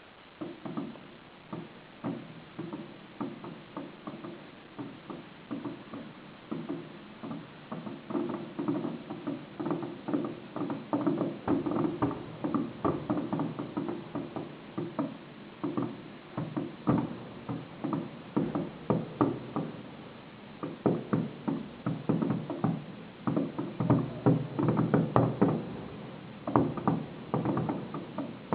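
Fireworks display: a rapid, uneven series of firework bangs, several a second, starting abruptly and growing denser and louder toward the end.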